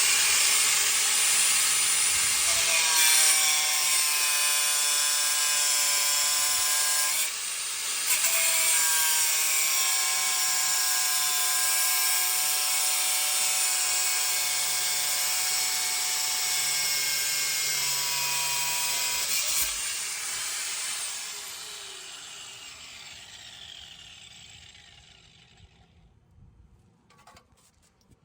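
Craftsman CMEG100 4½-inch angle grinder running with a cutoff wheel, cutting a braided brake hose, a loud steady whine with a short dip about seven seconds in. About twenty seconds in it is switched off and winds down, fading out over several seconds.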